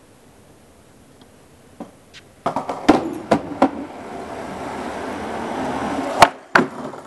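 Skateboard dropped onto concrete with a few clacks, then its wheels rolling and growing louder as it comes closer. Two sharp cracks about six seconds in: the tail popping for an ollie and the board landing.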